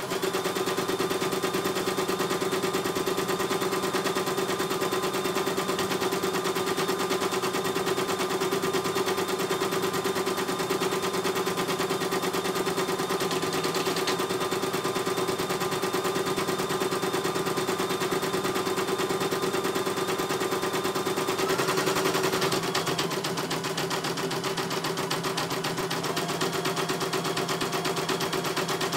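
CNY E900 computerized embroidery machine stitching a design: a fast, steady needle clatter over a constant motor hum. The hum changes pitch about three-quarters of the way through.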